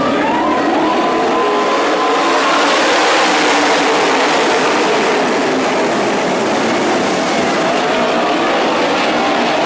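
A pack of 410 winged sprint cars racing on a dirt oval, their engines blending into one loud, steady din.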